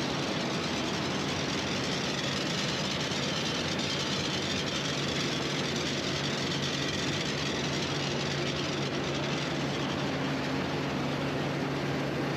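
Potato harvester running in the field: a steady, loud machinery noise with an even low engine hum.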